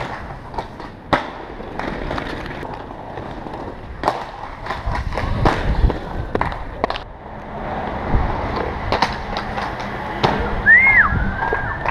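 Inline skate wheels rolling over paving stones, with repeated sharp clacks and thuds as skaters hit ledges and land jumps. A short high whistle-like call rises and falls near the end.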